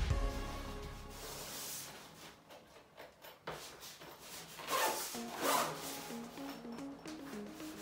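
Zipper on a soft zip-up lunchbox being pulled, two short rasping strokes about five seconds in, over quiet background music.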